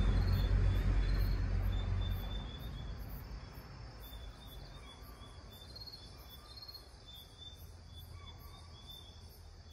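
Crickets and other insects trilling and buzzing in rhythmic pulses, with a low rumble that fades out over the first two seconds. A few faint, distant calls come in the second half, most likely spotted deer (chital) alarm calls, which are typical of a tiger moving nearby.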